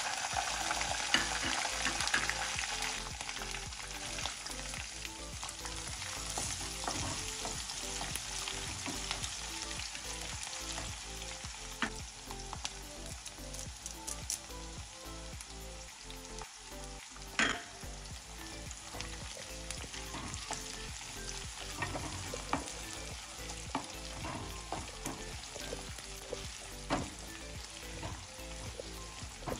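Garlic cloves and dried red chillies sizzling in hot oil in a nonstick kadai, loudest in the first few seconds as the garlic goes in. The frying carries on with scattered crackles and one sharp pop about halfway through. Near the end a wooden spatula stirs the pan.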